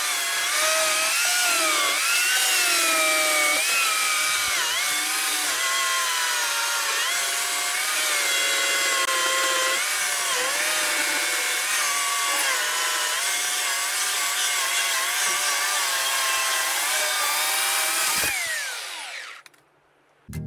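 Oregon CS1500 electric chainsaw cutting through a log, its motor whine wavering in pitch as the chain bites and eases. About 18 seconds in the motor is let off and winds down, its pitch falling away to a stop.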